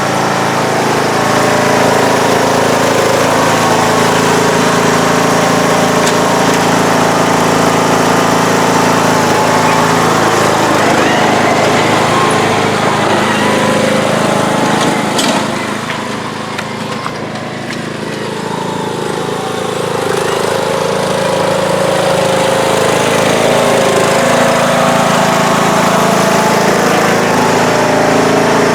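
John Deere D105 lawn tractor engine running steadily as the tractor is driven. It drops in level about halfway through and comes back up a few seconds later.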